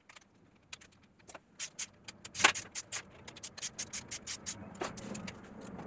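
Small socket ratchet clicking in quick runs as the camshaft bearing cap nuts on a VW 16V cylinder head are gradually tightened down, with one louder metallic clack about two and a half seconds in.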